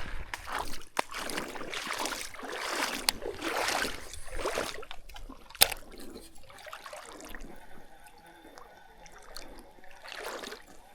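Water sloshing and trickling, with irregular swishes and a sharp click about halfway through, then quieter.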